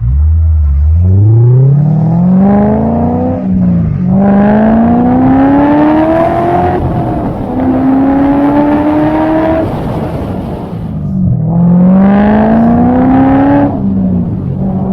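C6 Corvette V8 with LG Motorsports headers and exhaust, pulling hard from idle and rising through three gears with quick upshifts between them. It eases off, then pulls hard once more near the end before settling.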